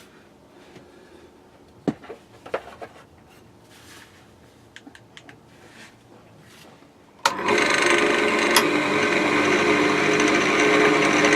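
A few light knocks, then about seven seconds in a wood lathe turning tool bites into the spinning wooden blank and cuts steadily, a loud continuous scraping with a machine hum under it.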